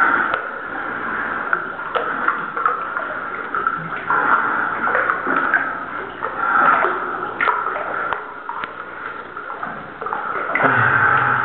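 Water sloshing and splashing as someone moves through a flooded cave sump under a low rock ceiling, with scattered knocks and clicks.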